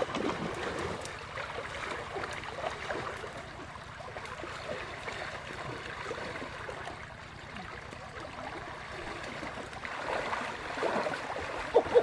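Shallow stream running, with water sloshing and splashing around a person wading through it; the splashing gets busier near the end.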